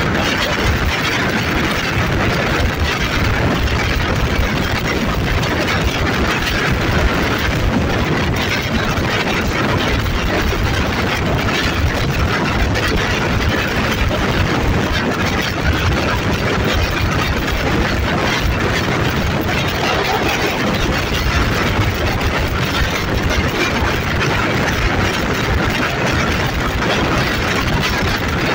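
Alsthom diesel-electric locomotive running under way, heard from the carriage coupled right behind it, its engine sound mixed with the noise of the moving train. The noise holds steady and loud throughout.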